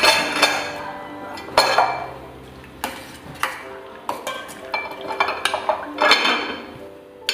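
A steel spoon stirring hibiscus petals in water in a stainless steel pot, knocking against the pot's sides in a series of irregular clinks with a short ring after each.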